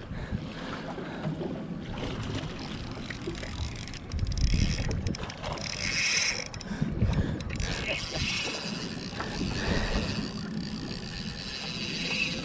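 Wind buffeting the microphone in irregular low gusts over the wash of water around a boat, with a brief hiss about six seconds in.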